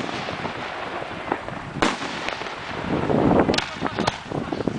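1.3G aerial firework shells going off with several sharp bangs: the strongest a little under two seconds in, then more near the end. A louder spell of noise comes about three seconds in.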